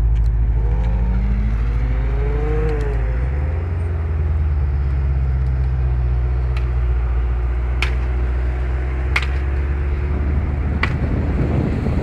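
Porsche Panamera 4S engine pulling away at low speed, heard on a phone microphone: its pitch climbs and falls back over the first few seconds, then settles into a steady deep rumble. Near the end, wind buffets the microphone.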